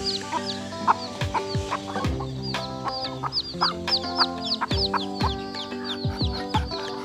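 Chickens calling, many short high calls falling in pitch, several a second, over background music of held notes.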